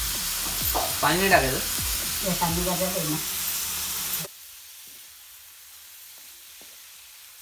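Dried fish (sukat) sizzling as it fries in hot oil with onion and spices in a kadhai, with two brief voice-like sounds over the sizzle in the first few seconds. About four seconds in, the loud sizzle cuts off abruptly to a much quieter sizzle with a few faint scrapes of a steel spoon stirring.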